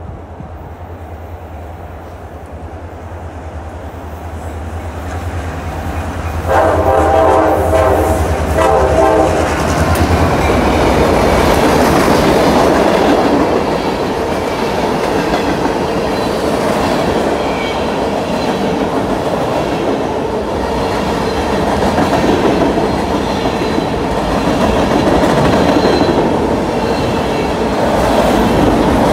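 Freight train approaching, its locomotive's engine drone building, sounding one long horn blast of about three seconds some six seconds in. Then the freight cars roll past with steady wheel-on-rail rumble and clickety-clack.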